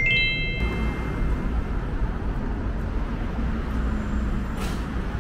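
A short sparkle-chime sound effect, a few bright notes quickly stepping up and fading within about a second, at the start, over steady city street traffic noise.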